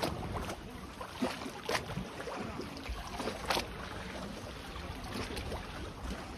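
Water lapping against moored boats and the quay, under a low wind rumble, with a few short sharp slaps.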